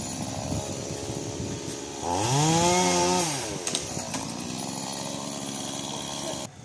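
Chainsaw running, revving up and back down once about two seconds in, then running on steadily.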